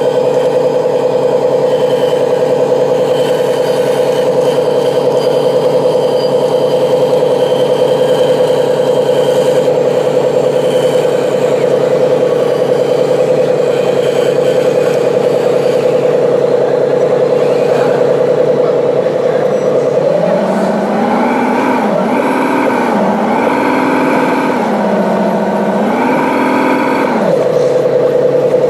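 Radio-controlled scale Caterpillar 385C excavator running with a steady, high motor whine. About twenty seconds in, a lower whine joins that rises and falls in pitch several times as the machine works, then drops away near the end.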